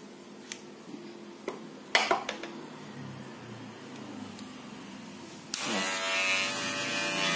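A few sharp clicks and snips as excess tape is trimmed with scissors and the clipper is handled, then about five and a half seconds in an electric hair clipper switches on and runs with a steady buzz. Insulating tape has been packed at its blade seat to damp the noise of a clipper that had become loud.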